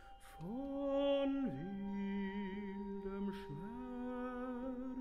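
Tenor singing a slow German art-song phrase in a few long, gliding notes, one with wide vibrato near the middle. Soft held instrumental tones from a chamber ensemble sound underneath.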